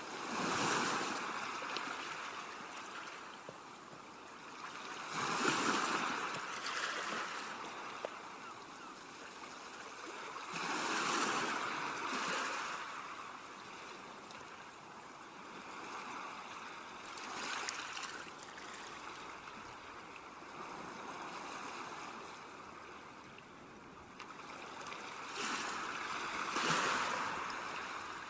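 Ocean waves breaking and washing up the shore. The surf swells into a louder surge about every five to six seconds, five times in all, and falls back to a steady wash in between.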